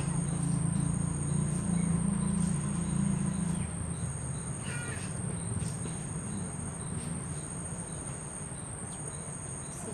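Tropical forest ambience: insects calling steadily on a high tone, with another high call repeating about every second, and a bird chirping briefly about halfway through. A low hum lies under it for the first three seconds or so, then fades.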